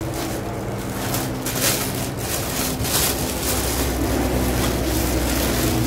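Thin plastic bag crinkling and rustling in quick irregular bursts as it is opened and handled, over a steady low hum.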